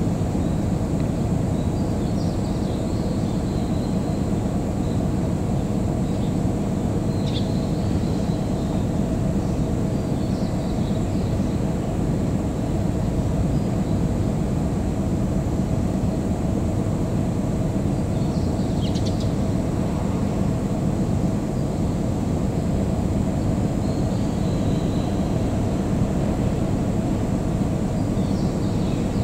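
Steady low rumble and hum of a Shinano Railway 115 series electric train running slowly on a test run, even in level throughout, with a few faint high chirps of birds now and then.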